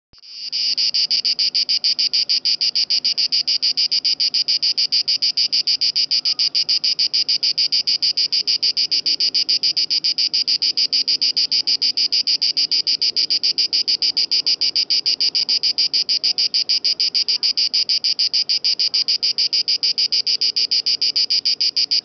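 Cicada singing: a loud, high song pulsed evenly several times a second, coming in within the first second and keeping a steady rhythm.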